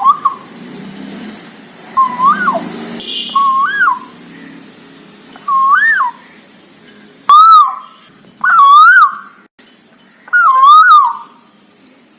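A child imitating a cuckoo's call: a repeated rising two-note "koo-oo" hoot, given about seven times, with the later calls louder.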